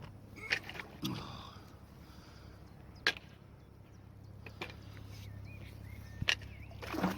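A few sharp, separate knocks and clinks, about five over the stretch, from a metal shopping trolley held on a magnet-fishing magnet as it is hauled up against a river wall. A louder rustling scrape comes near the end.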